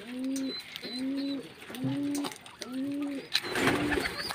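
Low cooing calls repeated in an even series, four notes a little under a second apart, each rising briefly and then holding a steady low tone, followed near the end by a short rustling burst.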